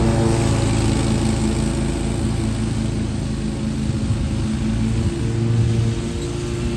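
Zero-turn mower engine running steadily at working speed.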